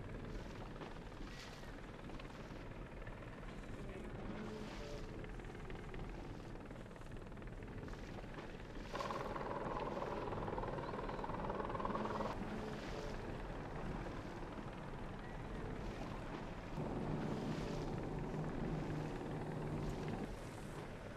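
Steady engine rumble, with two long held tones of about three seconds each: the first about nine seconds in, the second lower and near the end.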